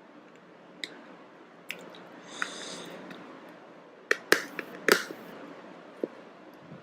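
Plastic shrink wrap on a phone box being picked and pulled at by hand: scattered sharp clicks and crackles, a brief crinkle about two and a half seconds in and a cluster of louder snaps around the middle.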